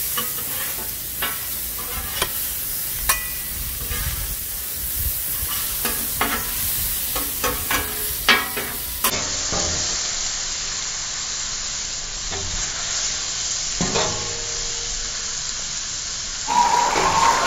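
Diced chicken sizzling on a hot flat-top griddle while two metal spatulas scrape and clack against the steel, tossing it. Near the end a louder sound with wavering tones comes in over the sizzle.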